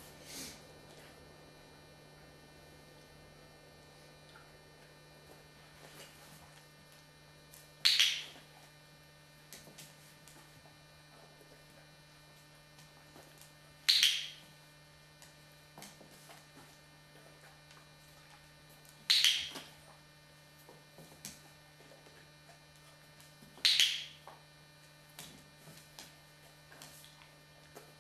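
Four sharp clicks from a dog-training clicker, about five seconds apart, over a steady low electrical hum.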